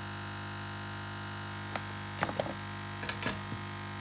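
Steady electric hum and whine of a running hot-air rework station, with a few light clicks and taps from a circuit board being handled on the bench in the second half.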